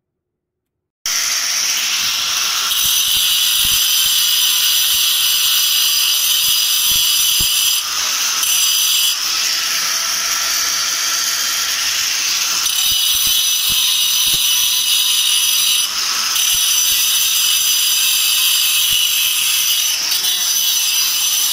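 Electric angle grinder cutting into the face of a flour mill's grinding stone, starting about a second in: a loud, steady, high-pitched grinding that dips briefly a few times. The stone is being re-cut to repair a mill that has stopped grinding flour.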